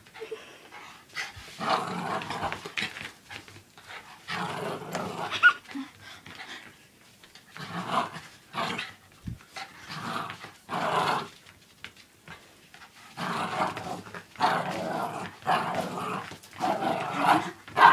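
Small dog growling in play, in repeated short bursts, as it spins and snaps at a person's waving hand.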